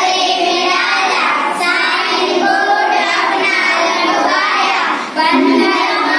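A group of children reciting a Hindi children's rhyme together in a sing-song chorus, with a brief pause about five seconds in.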